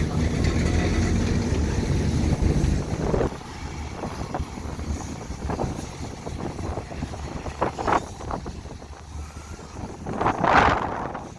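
Excavator diesel engine running, a steady low drone that drops away about three seconds in. After that come quieter noisy sounds with scattered knocks, and a louder rushing burst near the end.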